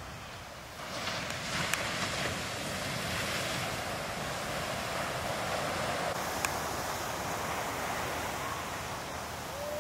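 Heavy surf: big waves breaking and whitewater rushing, with wind buffeting the microphone. The noise steps up about a second in and stays steady.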